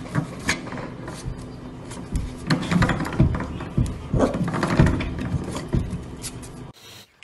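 A corgi puppy pawing and biting at a small object at the foot of a door: a run of irregular knocks and taps against wood, thickest and loudest in the middle.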